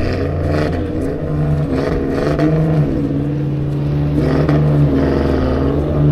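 Off-road vehicle engine revving, its pitch rising and falling again and again as the throttle is worked.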